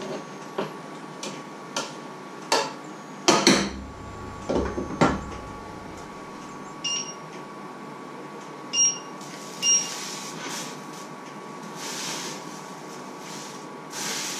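Stainless pots and lids clinking and knocking on a glass-ceramic electric hob, the loudest knock about three and a half seconds in. Then three short electronic beeps from the hob's touch controls, and a pot sliding on the hob near the end, over a faint steady whine.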